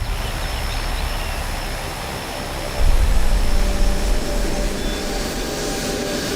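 Aircraft engine drone, a steady rumble that swells abruptly about three seconds in.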